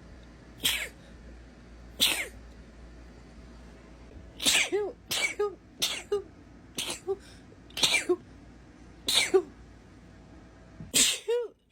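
A woman sneezing over and over in a fit: about a dozen short, sharp sneezes. A few come spaced out, then from about four seconds in they come fast, roughly two a second, several ending in a short high-pitched 'choo'.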